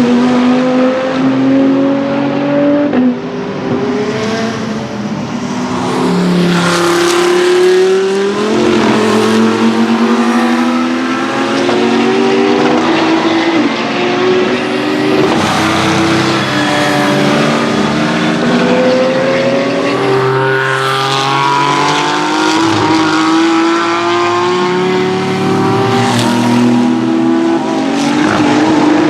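Several racing cars' engines passing in quick succession, each pitch climbing and then dropping sharply at gear changes, with more than one car heard at once.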